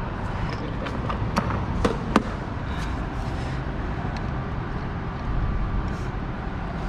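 A few light clicks and taps, the sharpest about two seconds in, from a retaining clip being worked off a fuel pump assembly, over a steady low background rumble.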